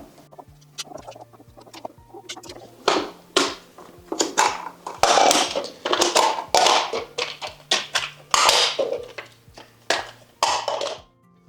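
Background music with a low bass line, over a run of clicks, taps and short rustling or scraping noises from hand work on small parts.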